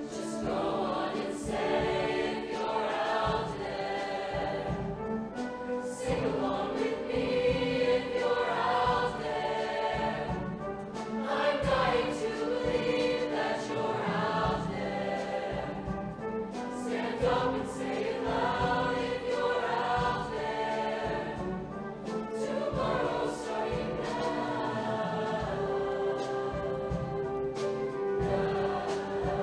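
Show choir singing in harmony with instrumental accompaniment, a live performance.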